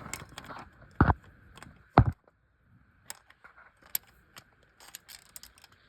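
Two loud knocks about a second apart, then scattered light metallic clicks and clinks: engine parts and tools being handled.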